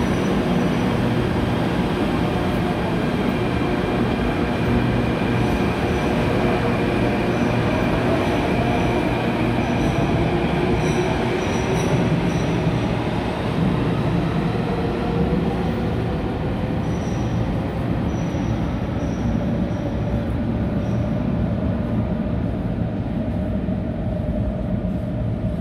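Athens Metro second-generation subway train pulling out of an underground station: steady motor and wheel running noise, with a motor whine that rises in pitch as it picks up speed and faint, intermittent high wheel squeals.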